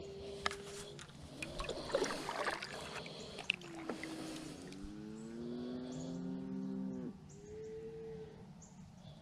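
Cattle mooing: several drawn-out moos, the longest lasting about two seconds past the middle and falling slightly in pitch. A few sharp clicks and some rustling come in the first few seconds.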